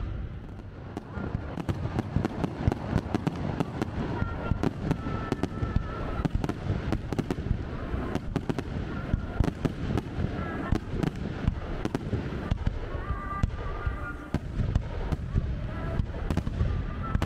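Aerial fireworks display going off: a dense run of sharp crackling pops over a continuous low rumble of shell bursts.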